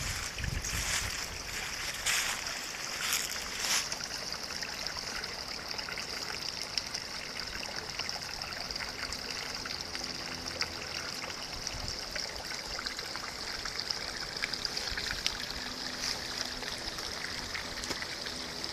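Small woodland creek trickling and babbling over flat rocks: a steady rush of running water. A few brief crunches come in the first few seconds.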